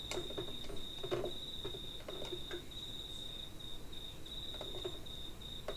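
A cricket trilling in one high-pitched trill, broken every so often by short gaps, with a few faint clicks from test probes handled on a circuit board.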